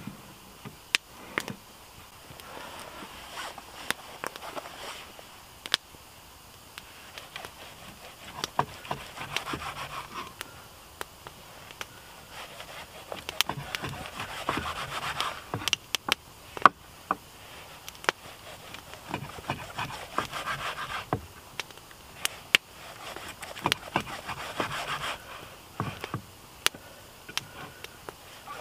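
Kitchen knife slicing through a raw joint of meat on a wooden cutting board. Bouts of sawing strokes come every few seconds, one bout per slice, with sharp clicks of the blade on the board.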